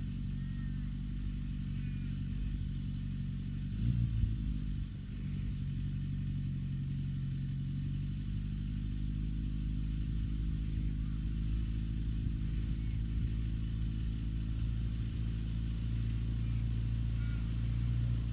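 Morris 1100 S engine running steadily as the car is driven, with a brief louder bump about four seconds in.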